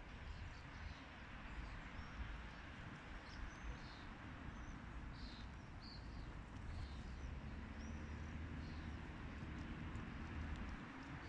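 Faint outdoor ambience: a steady wash of background noise with a low rumble, and short high chirps of small birds now and then.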